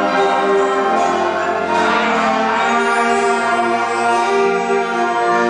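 Youth orchestra of strings, woodwinds and brass playing slow held chords under a conductor; the chord changes about two and a half seconds in.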